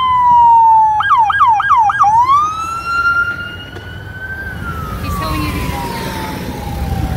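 Electronic police siren wailing, broken about a second in by four quick whooping yelps, then rising to a high note and slowly falling again. A low traffic rumble underneath grows louder in the second half.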